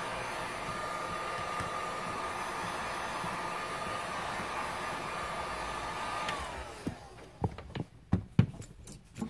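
Hot-air gun blowing with a steady whine as it heats a phone's back glass to soften the adhesive. About six seconds in it is switched off and the whine falls away, followed by a few light clicks and taps.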